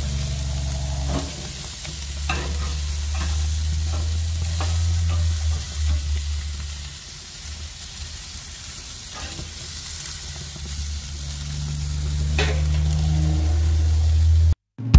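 Jerk chicken sizzling on a barbecue grill grate, a steady hiss over a low rumble, with a few sharp clicks of a utensil against the grate. The sound cuts off abruptly just before the end.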